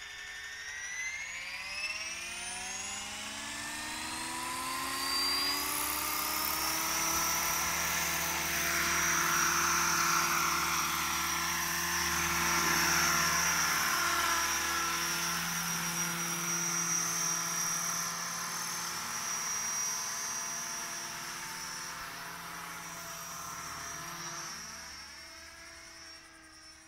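Thunder Tiger AH-1 Cobra radio-controlled scale model helicopter: its motor and rotor whine climbs in pitch over the first five seconds or so as the rotor spools up, then runs steady, and wavers and fades near the end as the helicopter flies off.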